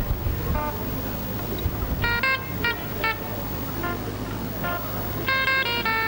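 Keyboard music of short, horn-like staccato notes and chords in irregular clusters, over a steady low hum.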